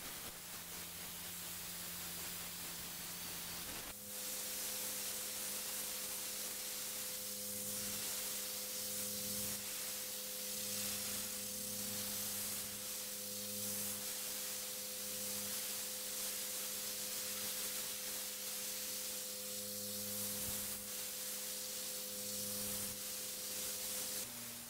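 Pressure washer running: a steady machine hum under the hiss of the high-pressure water spray. About four seconds in, the sound changes abruptly: the hum shifts higher and the hiss grows louder.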